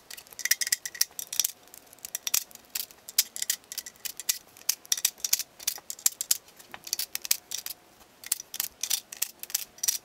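Hand ratchet clicking in quick runs of sharp clicks as the lower oil pan bolts of an Audi 5.2L V10 are backed out.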